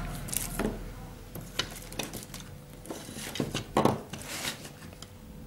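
Scattered light clicks, taps and scrapes of a screwdriver and multimeter probes handled against a mosquito racket's circuit board and plastic frame, with one sharper knock a little before the end.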